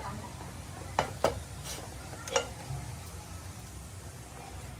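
Three sharp clinks of hard objects knocked together: two close together about a second in, a third about a second later.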